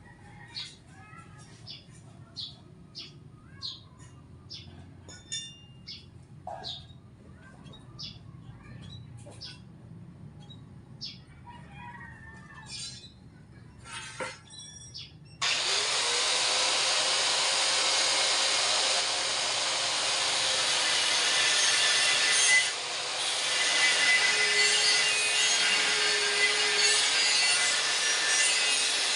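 Scattered light clicks and taps, then about halfway through a power tool spins up suddenly and runs steadily with a whine and a harsh grinding noise, dipping briefly once.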